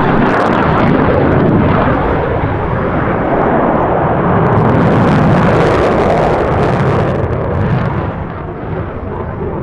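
F-16 Fighting Falcon fighter jet passing overhead, its jet engine loud and rumbling throughout, swelling around the middle and easing a little near the end.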